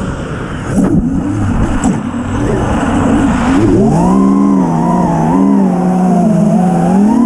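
FPV quadcopter's four brushless motors (iFlight Xing-E 2207 1800kv on 6S) spinning 5-inch props, heard from the camera on the frame. For about the first three and a half seconds there is only low, rough rushing noise; then the motor whine climbs, wavers up and down with the throttle, and rises again near the end.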